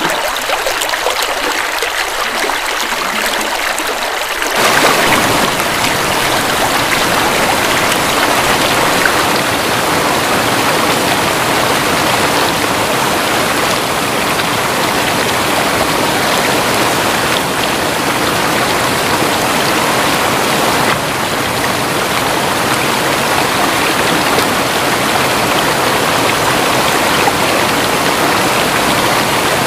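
River water flowing, a steady rushing. About four and a half seconds in it turns slightly louder and fuller, with deeper sound filling in.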